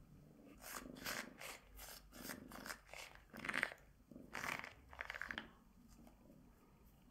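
Short rustling, rasping strokes, a few a second for about five seconds: a rubber-nubbed pet grooming glove being rubbed and handled, fur being pulled from its nubs.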